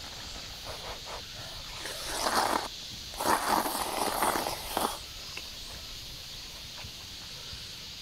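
Noodles slurped up from a bowl of kalguksu noodle soup in two long slurps, the first about two seconds in and a longer one just under two seconds long right after it.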